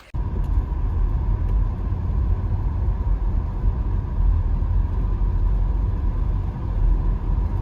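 A car on the move: a steady low rumble of road and engine noise.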